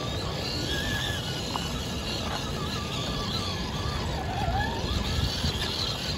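Electric motor and geared drivetrain of a Traxxas TRX-4 RC crawler whining as it climbs over rock, its pitch wavering and dipping with the throttle, over a steady low rumble.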